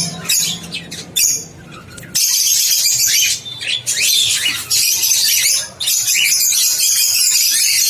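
Many small caged parrots chirping and squawking at once, a dense high-pitched chatter that gets louder about two seconds in.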